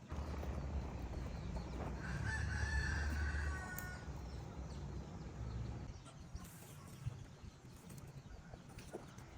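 A rooster crowing once, a drawn-out call about two seconds long starting about two seconds in, over a low rumble that fades after the crow.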